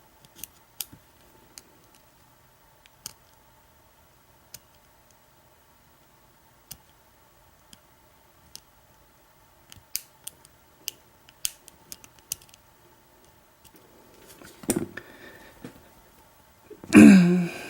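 Lock pick and tension wrench working the pins of an American 1100 padlock held in a false set: sparse small metallic clicks and taps, coming closer together partway through. Near the end comes a louder, brief noise.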